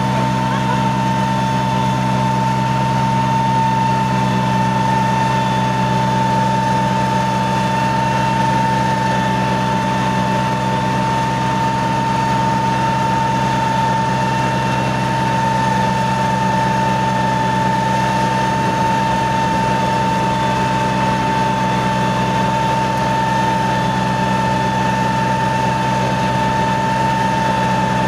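Four-wheel farm tractor engine running at steady revs under load while towing another tractor through mud, close up, with a constant high whine over the engine note.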